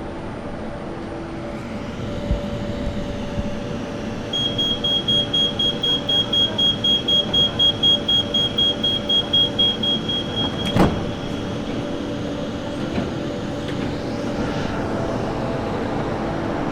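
Inside an Ivolga electric train: a high pulsing warning beep sounds about three times a second for some six seconds, then a single loud thud, typical of the door-closing chime and the doors shutting, over the carriage's steady hum.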